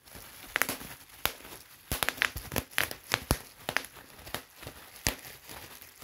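Bubble wrap being popped: about a dozen sharp, irregularly spaced pops, with the plastic sheet crinkling between them.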